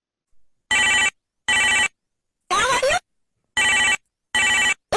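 Telephone ringing sound effect in a double-ring pattern: two rings, a brief sliding voice-like sound, then two more rings, each ring starting and stopping abruptly.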